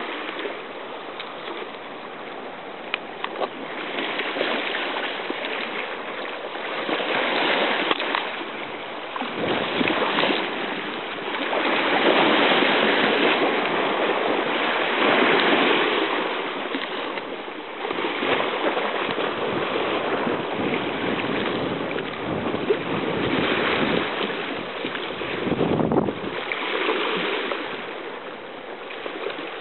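Small sea waves washing and splashing over shoreline rocks, the rush of water swelling and ebbing every few seconds.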